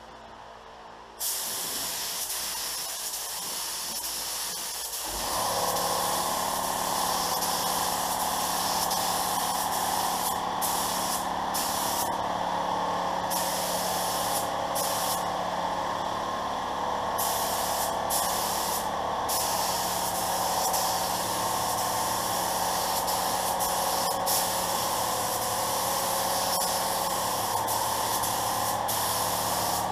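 A Pro-Tek 4000 HVLP spray gun with a 1.3 mm needle and nozzle hissing as it sprays base coat at about 28.5 psi, in passes with brief pauses where the trigger is let go. About five seconds in, a steady lower drone joins underneath and runs on.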